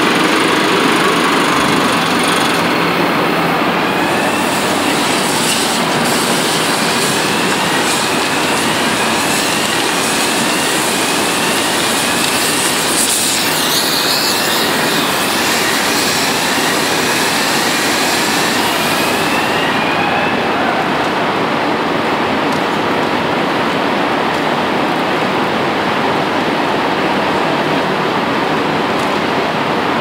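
Loud, steady rushing noise of a blast furnace being tapped: the tap-hole drill working at the furnace, then hot metal and flame jetting from the opened tap hole. A short rising squeal repeats in a steady series from about four seconds in until about twenty seconds in.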